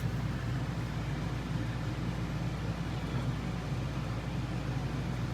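Steady low hum with a faint hiss over it, unchanging throughout, with no distinct handling sounds.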